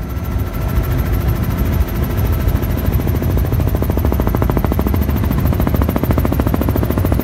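Helicopter in flight: a fast, steady chop of the rotor blades over engine noise, building up through the first second.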